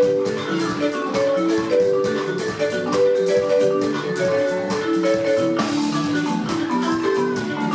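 Live band music, instrumental: a busy run of short melodic notes over a steady percussion beat.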